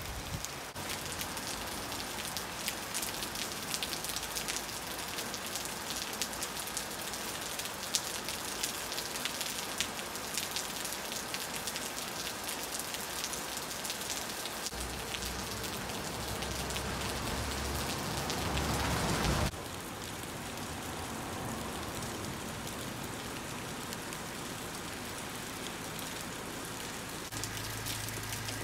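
Steady rain, a dense patter of drops falling and dripping off a roof edge. About two thirds of the way through, a louder rushing sound swells for a few seconds and breaks off suddenly.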